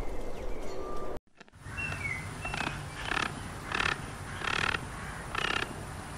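Outdoor nature ambience. After a brief dropout, a bird gives a few short chirps, then a raspy call repeats about once every 0.7 seconds.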